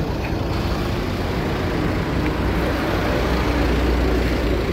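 Truck engine idling: a steady low rumble that swells slightly about three seconds in.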